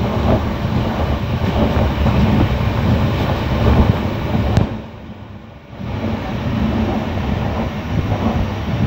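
Moving Indian passenger train heard from inside the carriage by the window: a steady rumble and rattle of the wheels running on the track. The noise drops off sharply for about a second just past the middle, then comes back.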